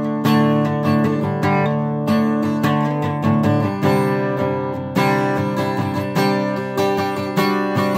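Acoustic guitar strummed in a steady rhythm, its chords changing every second or two; an instrumental with no singing.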